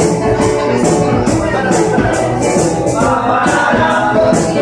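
Live band music with a double bass and a shaker keeping a steady beat of about three strokes a second.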